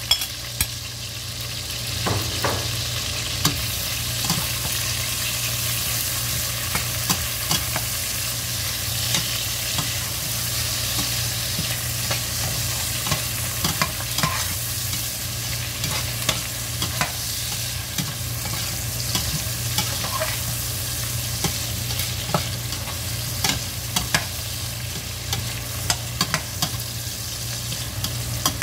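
Chicken pieces with onion, garlic and ginger sizzling in oil in a stainless steel pot, sautéing. Frequent clicks and scrapes come from a metal utensil stirring against the pot, over a steady low hum.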